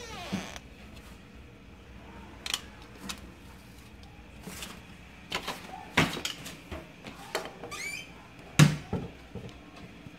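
Household door or cupboard being handled: a scattered series of knocks and clunks, the loudest about two-thirds of the way in, with a short squeak just before it, mixed with the rustle of a hand-held phone moving.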